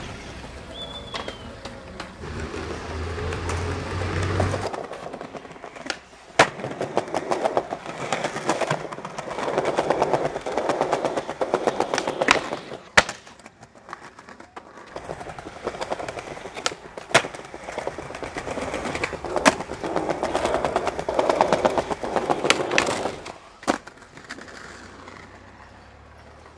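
Skateboard wheels rolling over tiled paving in several separate runs, with a fast clatter from the tile joints. Sharp wooden clacks of the board popping and landing come between and at the ends of the runs.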